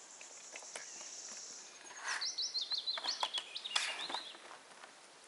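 A small songbird singing: a high buzzy trill for about a second and a half, then a quick run of short, falling whistled notes. A few sharp clicks and snaps sound along with it.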